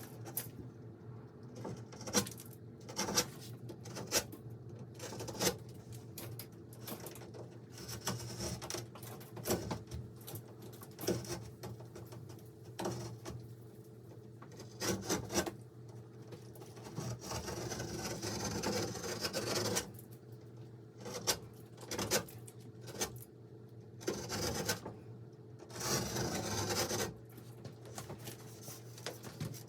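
Irregular rubbing and scraping with scattered knocks and clicks, over a steady low hum.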